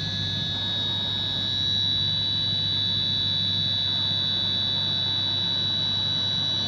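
DMG DMU 80T five-axis CNC machining centre running with its tool clear of the work: a steady high-pitched whine over a low hum.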